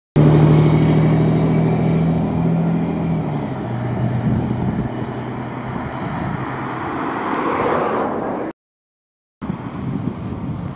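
A motor vehicle's engine running with a steady hum that steps down in pitch about three seconds in, over a wide rushing noise. The sound cuts out abruptly for about a second near the end, then resumes.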